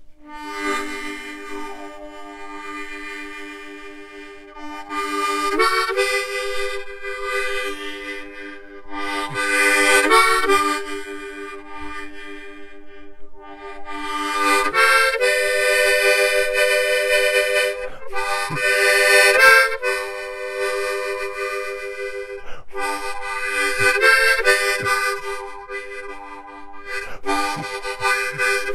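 Harmonica playing a tune, mostly held chords with the notes changing every second or so, swelling louder and softer by phrases.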